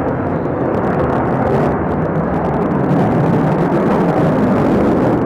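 Sukhoi Su-35 fighter jet flying overhead, its jet engines making a loud, steady rushing noise.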